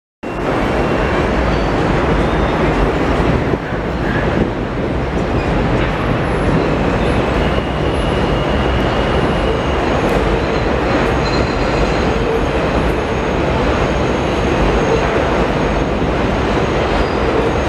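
New York City subway train running along an elevated steel viaduct: a steady, loud rumble of wheels on rails, with faint high wheel squeal now and then.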